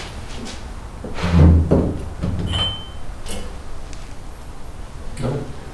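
A dull, heavy thump about a second and a half in, then a brief high-pitched beep, among smaller knocks and movement noises.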